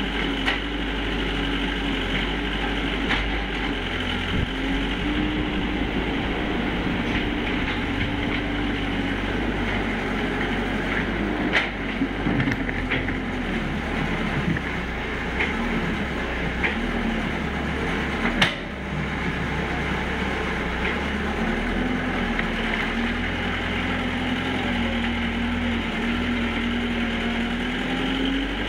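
Hitachi EX60 excavator's diesel engine running under hydraulic load, its pitch rising and dipping as it digs and swings clay. A few sharp knocks cut through, the two loudest midway through, about seven seconds apart.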